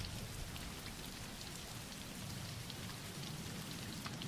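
Steady soft rain falling: an even hiss with scattered drop patter.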